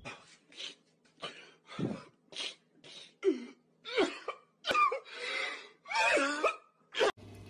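A man crying hard: a run of short, gasping sobs, then longer wailing sobs that slide up and down in pitch, cut off abruptly near the end.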